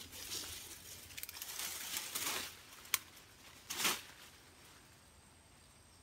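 Leaves and twigs rustling and crackling as a long stick is pushed through dense shrubs, with a sharp snap about three seconds in and a brief rustle just before four seconds.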